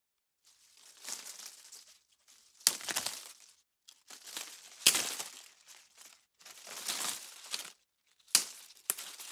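Crinkling, crackling noise in about six bursts of a second or so each with short gaps between, several of them opening with a sharp crack.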